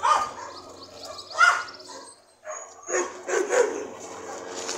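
Dog barking in short, sharp barks: one at the start, another about a second and a half in, then a quick cluster of barks and yips about three seconds in.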